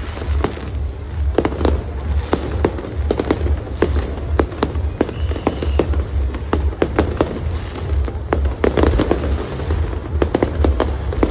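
Aerial fireworks display: a rapid, irregular run of sharp bangs and crackling bursts, many each second, over a steady low rumble.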